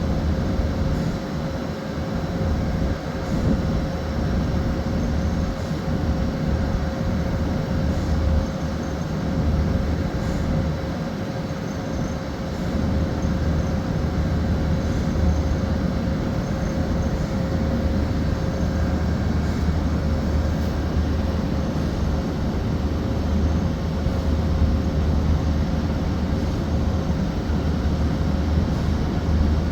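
Large crane's diesel engine running steadily under a lift: a continuous low rumble with a steady whine above it.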